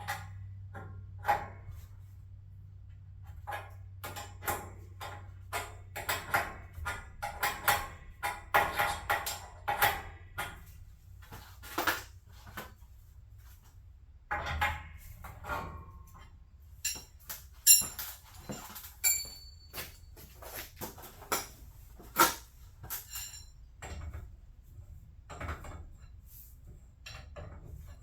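Irregular metal clinks and knocks of tools and door hardware being handled during garage door spring work, a few with a brief metallic ring.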